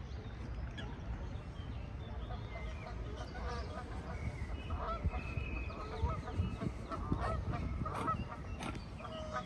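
Geese honking, short calls repeated again and again and growing busier a few seconds in, over a steady low background rumble.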